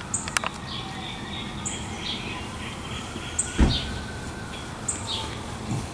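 A bird calling again and again, about every one and a half seconds, each call a short high note followed by a lower one. A single dull thump comes about three and a half seconds in.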